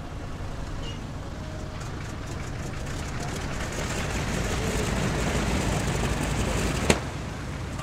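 Super Chipmunk's piston engine idling with the propeller turning slowly as the plane taxis, the steady engine sound growing gradually louder. A single sharp click about seven seconds in.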